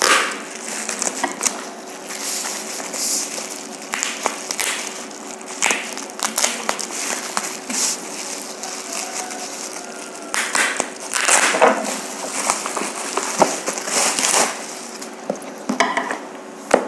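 Bubble-wrap packing being pulled and torn open by hand: irregular crinkling and crackling plastic, with a faint steady hum underneath.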